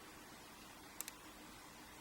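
Pick working the pin stacks of a Mul-T-Lock Classic euro cylinder under light tension: two light clicks close together about a second in, over near silence.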